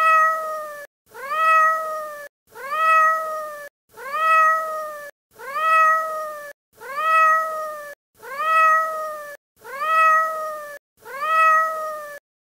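A cat meowing over and over: nine identical meows, each rising and then held for about a second before cutting off sharply, repeated evenly about every one and a half seconds. It is one meow recording played on a loop.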